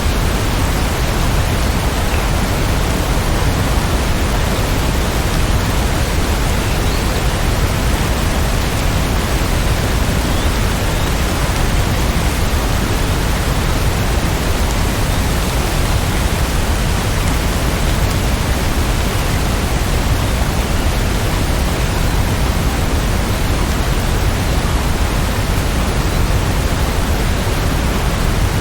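Steady, even rain noise with a heavy low rumble underneath, holding at one level throughout with no thunderclap or swell.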